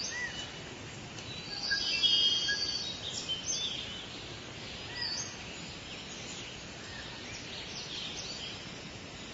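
Several birds chirping and singing over a steady background hiss, with a louder, busier burst of song about two seconds in.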